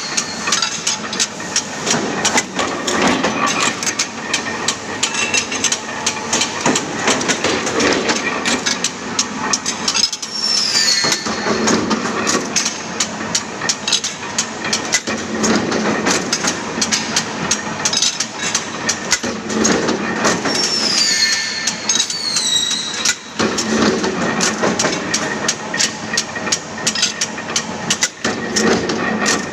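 Two punch presses stamping aluminium scaffolding parts, a fast run of repeated metallic strikes that goes on without a break, with a high falling squeal a few times.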